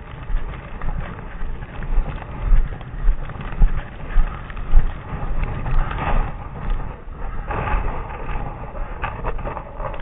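Footsteps walking through snow at a steady pace of a little under two steps a second, each step a low crunching thump.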